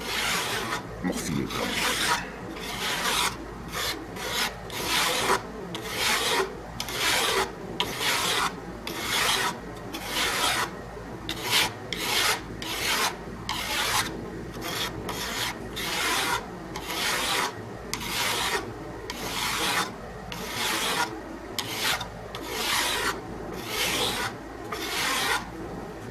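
Hand file rasping across the edge of a steel cabinet scraper blade held in a vice, in a steady rhythm of short strokes, about two a second. The edge is being filed square and flat to remove saw-tooth marks before the burr is raised.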